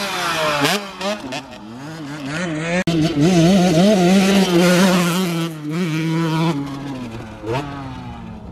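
Dirt bike engines revving, their pitch rising and falling with the throttle. There is a sudden brief break about three seconds in; the engine then runs loudest for a few seconds and fades away near the end.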